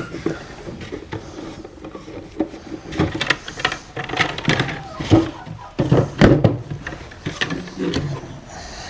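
Knocks and clatter of egg collecting at wooden nest boxes, busiest in the middle of the stretch, with chickens calling underneath.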